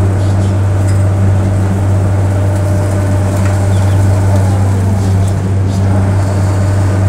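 Steady low machinery hum at the sugarcane unloading crane, with the tractor standing under it, running evenly while the cane bundle is hoisted off the trailer.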